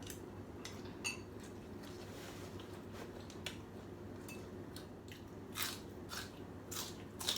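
Someone eating pho noodle soup: chewing, with a few short noisy bursts and clicks that come more often in the last two seconds. A steady low hum runs underneath.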